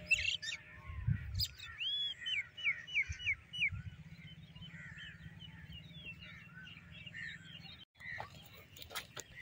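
Small birds chirping in the open: a quick run of about six repeated arched chirps a couple of seconds in, then scattered softer chirps. A low rumble runs underneath, and a few light clicks come near the end.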